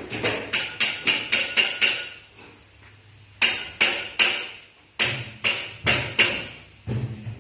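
Hammer striking an aluminium window profile: a quick run of about seven taps, a pause of about a second and a half, then more blows at a slower, even pace, each with a short metallic ring.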